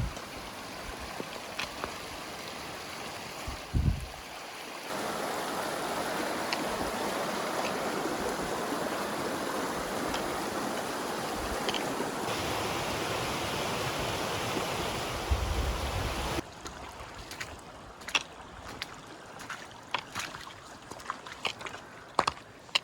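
Steady rush of running mountain water, a hiss with no tone in it that jumps louder about five seconds in, with short rumbles of wind on the microphone. After about sixteen seconds it drops to a quieter background with scattered sharp clicks and knocks.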